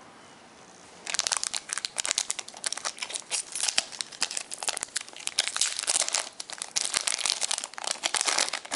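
Foil wrapper of a Pokémon TCG booster pack crinkling and crackling as it is handled and torn open by hand, starting about a second in and going on in dense bursts.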